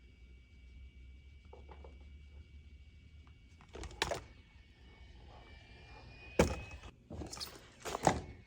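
A few sharp knocks and thumps in a small room: one about four seconds in, then several close together near the end, over a faint steady low hum.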